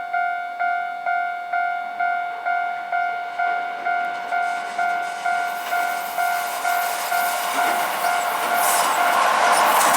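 Japanese level-crossing warning bell ringing steadily, one tone repeating about twice a second. From about halfway a Keihan commuter electric train comes in on the rails, its noise building until it is loudest near the end and drowns out the bell.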